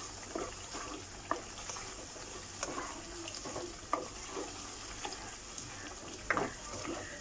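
A spoon stirring a frying tomato masala with bottle gourd pieces in a karahi, scraping the pan now and then over a low, steady sizzle. The masala is being fried further before the dal is added.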